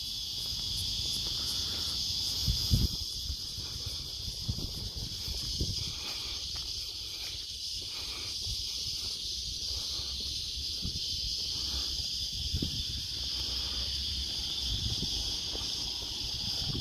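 Steady high-pitched insect chorus, with low wind rumble on the microphone and a few short bumps, the strongest about three seconds in.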